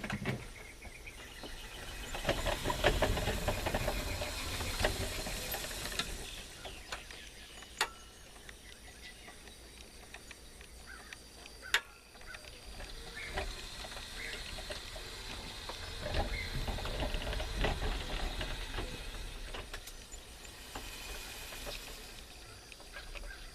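Rustling, hissing handling noise and wind on the microphone, swelling and fading twice, with scattered small ticks and two sharp clicks about a third of the way in and about halfway.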